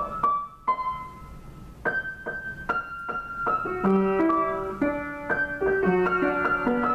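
Yamaha upright piano played by hand: a few single high notes struck one at a time, then from about four seconds in a melody with chords and bass notes underneath.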